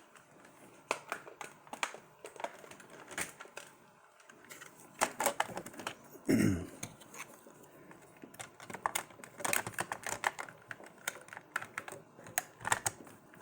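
Irregular small plastic clicks and taps as a battery pack is fitted and pushed into place in a toy RC excavator, with a short low falling sound about six seconds in.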